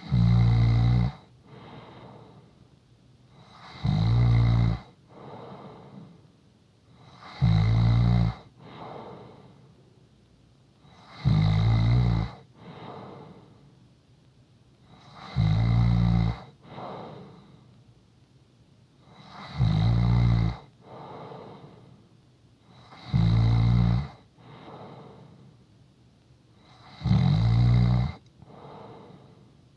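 A sleeping person snoring in a steady rhythm: a loud, low-pitched snore on each breath in, about every four seconds, each followed by a softer breath out.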